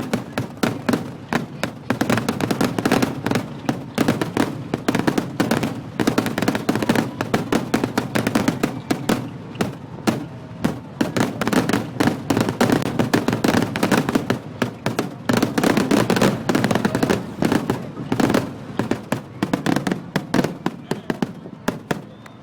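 Fireworks finale: a dense, unbroken barrage of aerial shell bangs, many a second, over a continuous low rumble.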